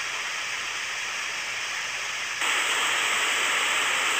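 Steady hiss of a swollen river's flowing water, getting louder a little past halfway.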